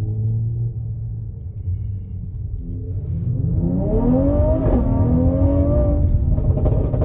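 Mercedes-AMG GT53's turbocharged 3.0-litre inline-six accelerating, heard from inside the cabin over a steady low rumble. The engine note starts climbing about three seconds in, dips at a gear change, then climbs again.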